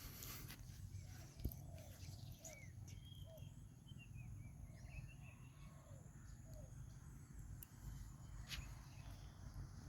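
Faint outdoor ambience: scattered short, distant bird chirps over a low steady rumble, with one sharp click about one and a half seconds in.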